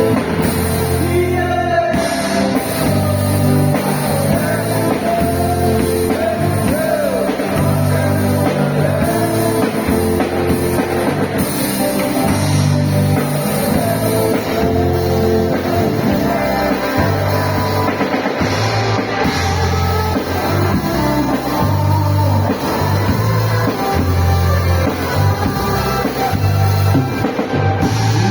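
Men's group singing a church song together over a live band of drum kit, bass and guitar, steady and loud.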